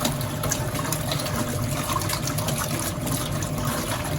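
Portable mini washing machine running its wash cycle: the agitator on the bottom churns clothes through the water, a steady water noise over a low motor hum.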